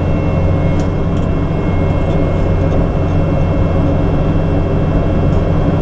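Diesel engine of compact equipment running steadily under load, with a faint high whine over the low hum.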